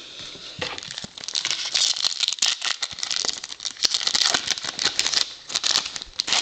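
Foil wrapper of a baseball card pack crinkling and tearing as it is ripped open by hand, a dense run of small crackles.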